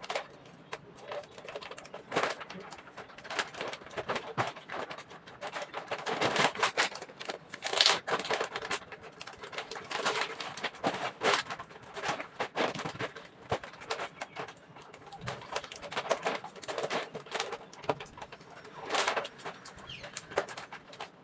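Plastic vacuum-storage bag packed with clothes crinkling and rustling irregularly as it is handled and pressed down.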